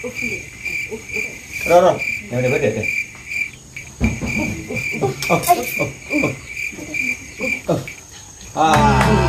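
A cricket chirping in an even rhythm, about two and a half chirps a second, under soft voices. Loud music starts near the end.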